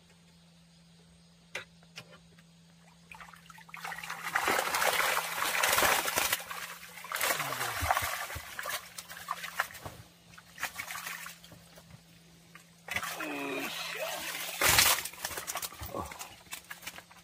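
A fishing keep net packed with crucian carp is hauled out of the water. After a few quiet seconds, water splashes and streams off the mesh in loud rushes.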